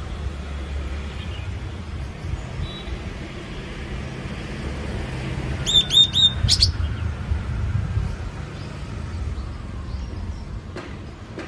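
Yellow-cheeked tit calling once about six seconds in: three quick short notes followed by one sharper note. A steady low rumble runs underneath.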